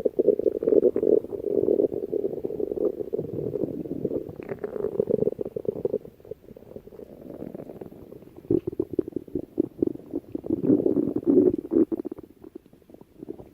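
Stomach growling: long, irregular gurgles and rumbles with small pops, loudest through the first six seconds, softer for a couple of seconds, then loud again for about three seconds before fading.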